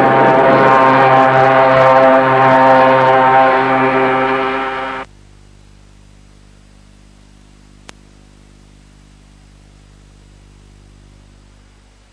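A loud sustained chord of several steady tones that cuts off abruptly about five seconds in, leaving a faint low hum with a single click near eight seconds.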